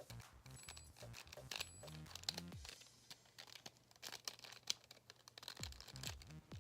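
Rapid, faint plastic clicking and rattling of a Rubik's Snake twist puzzle's segments being turned quickly by hand, with some cloth rustling; the clicks come thickest in the first couple of seconds and again a little past the middle.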